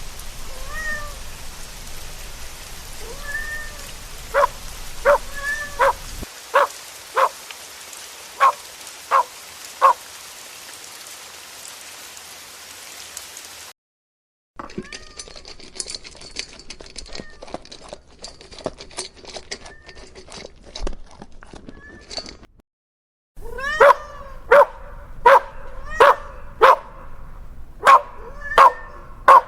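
A small kitten meowing and a puppy yipping: many short, high calls, some arched meows and some sharp yips, in three stretches broken by two brief silences. A steady hiss runs under the first half.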